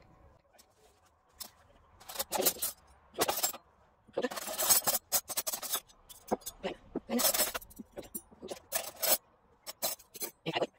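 Stainless-steel cutlery being laid out on a table: forks, knives and spoons clinking and scraping against each other and the tablecloth in a string of short, irregular clatters, starting after a quiet second or so.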